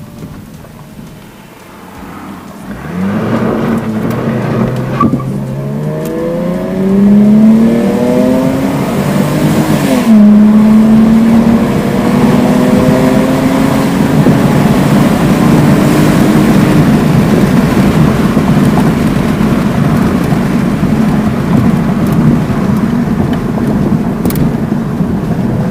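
A Toyota Altezza's 1G-FE Beams inline-six accelerates from about three seconds in, its pitch climbing. The pitch drops at a gear change about ten seconds in, climbs slowly again, then gives way to steady cruising with road noise.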